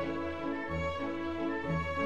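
Instrumental background music led by bowed strings, playing sustained notes over a low bass.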